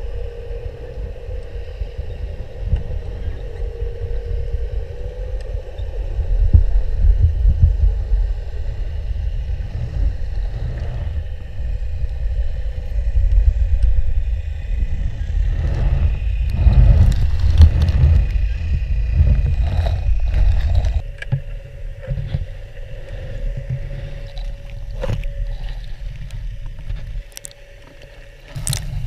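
Muffled low rumble of canal water picked up by an underwater camera, louder through the middle stretch and easing off after about two-thirds of the way, with faint steady hums over it.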